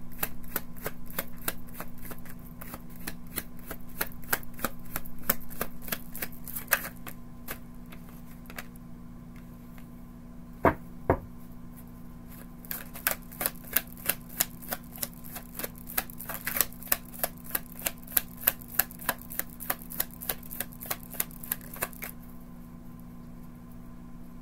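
A tarot deck being shuffled by hand: a rapid patter of card-on-card clicks, broken near the middle by two sharp knocks, then a quicker, even run of clicks that stops about two seconds before the end.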